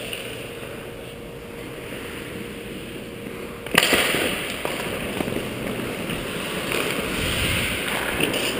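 Ice hockey faceoff: a sharp clack of sticks at the puck drop about four seconds in, after a stretch of low, steady arena hum. Then skate blades scraping the ice and wind rushing over a helmet-mounted camera as the wearer skates off.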